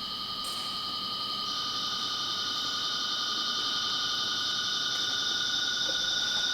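Electronic noise-drone music: several steady, high, shimmering tones held together and slowly growing louder, with a further high layer coming in about a second and a half in.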